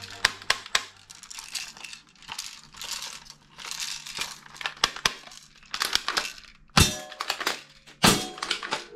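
Hard plastic toy guns being handled: irregular clicks, knocks and rattles as a toy submachine gun and a toy rifle are picked up and moved about, with two louder knocks near the end.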